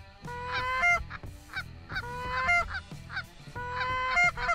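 Canada geese honking: three drawn-out honks that rise in pitch and break upward at the end, about a second and a half apart, over background music.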